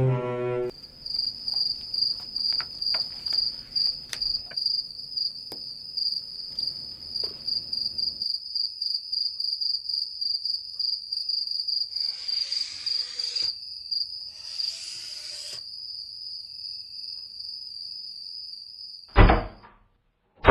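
Crickets chirping: a steady, rapidly pulsing high trill, with two short hisses in the middle and a loud thump near the end.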